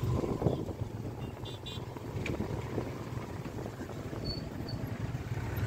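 Steady running noise of a moving car: a low engine hum with road rumble, and a few faint high chirps about a second and a half in.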